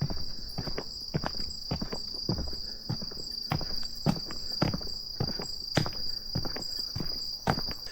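Footsteps walking at a steady pace of about two steps a second, over a continuous high-pitched trilling of insects.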